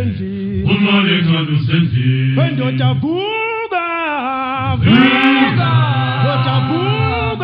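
A male a cappella isicathamiya choir singing close harmony. Deep bass voices hold low notes under a lead voice whose melody rises and falls, and the bass drops out briefly in the middle.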